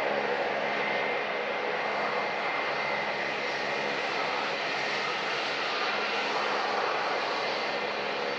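Airbus A321-231 jet airliner taxiing past with its IAE V2500 turbofan engines at low power: a steady jet rumble with a high whine above it.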